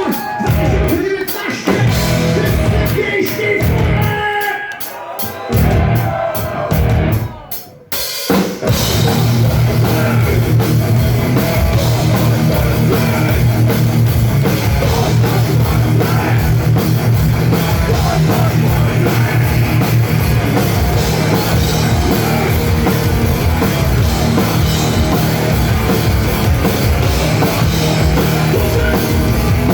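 Live heavy rock band playing loud with a drum kit: a sparser drum-led passage, a sudden brief drop about eight seconds in, then the full band comes back in hard and keeps going.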